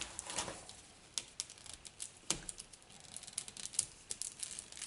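Plastic wrapping crinkling in the hands, with scattered small sharp ticks, as a tightly wrapped Play-Doh stamper toy is handled.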